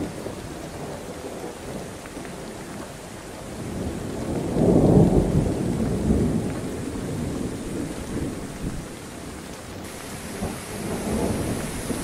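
Strong wind blowing through oil palm trees and rumbling on the microphone, with a stronger gust swelling about four to six seconds in.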